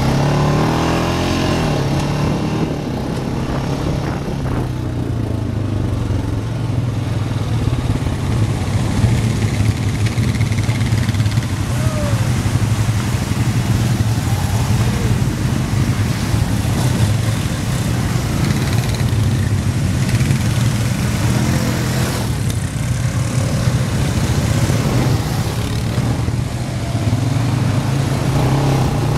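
ATV engine running steadily under way, with a rough rumble of riding noise over it.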